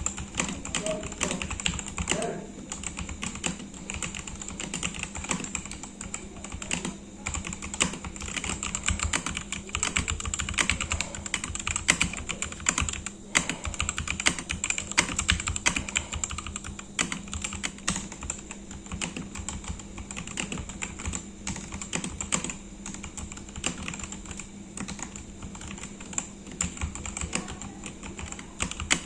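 Continuous, fast typing on a Cosmic Byte CB-GK-42 Phantom TKL mechanical keyboard after six months of use: dense, irregular key clicks, over a faint steady hum.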